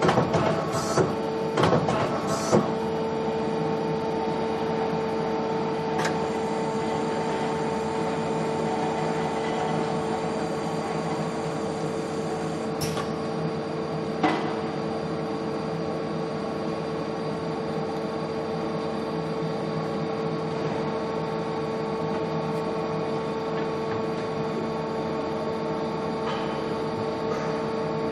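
Mazak Super QT 10 M CNC turning and milling centre switched on and running, giving a steady hum with a constant whine. A few sharp clicks come in the first seconds as its control-panel buttons are worked, with single clicks later on.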